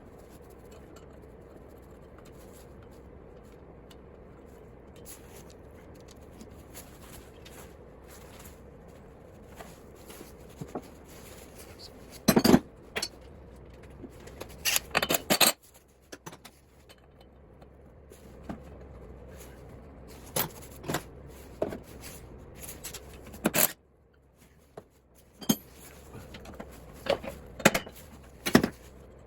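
Hand tools and metal parts of a small lawn mower engine clinking, scraping and knocking as the engine is taken apart. The sharp metallic knocks come irregularly over a steady low hum.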